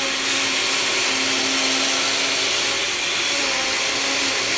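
Countertop blender motor running steadily at high speed through a thick load of frozen pineapple, vanilla ice cream and pineapple juice. The mix is too thick and frozen to blend easily: the blender really doesn't like it.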